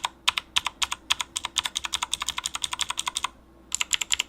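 Mechanical keyboard with clicky green switches and double-shot PBT keycaps, fitted with rubber O-ring dampeners, being typed on quickly: a few sharp clicks, then fast runs of clicks with a short pause about three seconds in. The O-rings damp the noise only slightly, and it is still a little loud.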